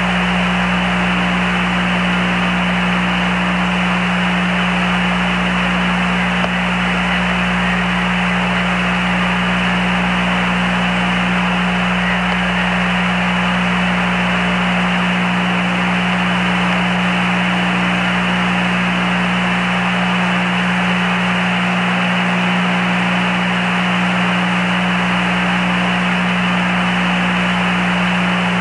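Steady radio static on the Apollo 11 air-to-ground communications channel: an even hiss cut off above the voice range, with a constant low hum underneath.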